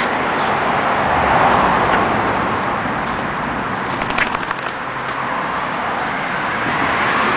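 Road traffic: cars passing, a steady tyre-and-engine noise that swells and fades twice. A few light clicks sound about four seconds in.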